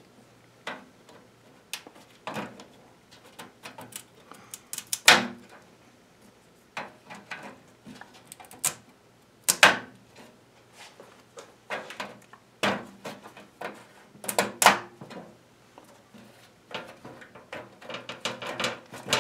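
3D-printed PETG indicator badges being pushed into their holes in a metal Jeep CJ7 dash panel, their locking lugs snapping in from the back. Irregular clicks and knocks of plastic on metal and the panel being handled, a few of them louder.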